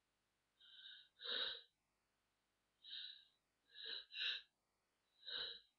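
A person's short, sharp intakes of breath, about six of them in irregular spurts, the catching build-up before a sneeze.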